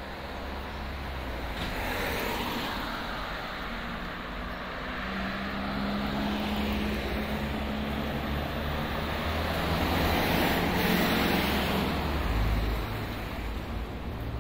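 Road traffic passing close by: tyre and engine noise swelling and fading, with an engine hum through the middle and the loudest pass about ten to twelve seconds in.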